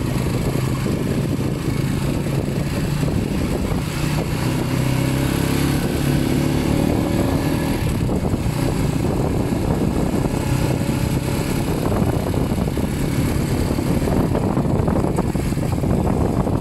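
Small motorcycle engine running steadily while riding along at an even speed.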